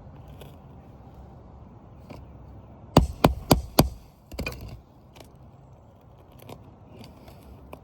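Four quick hammer strikes on a metal roofing tool, about a quarter second apart, then a short scrape, with light clicks and scuffs of work on asphalt shingles around them.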